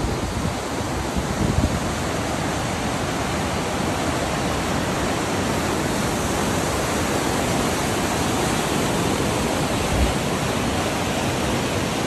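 Rushing mountain river in spate, white water pouring over rocks with a steady, loud roar of running water.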